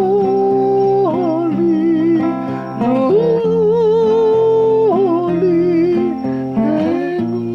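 A voice singing a Hawaiian-language hymn in long held notes with a wavering vibrato, over steady chordal instrumental accompaniment.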